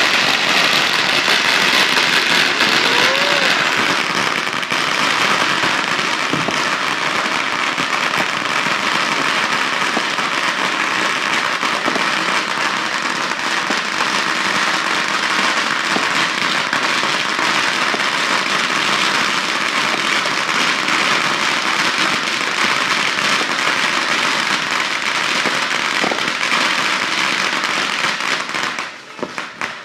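Fireworks and firecrackers going off together in a dense, continuous crackle of pops and bangs, with aerial bursts overhead. The crackle dies down suddenly near the end.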